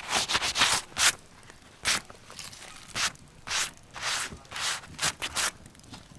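Work-gloved hand rubbing and scraping over the surface of a whole deer carcass on a spit: a quick cluster of rubbing strokes at the start, then single strokes spaced about half a second to a second apart.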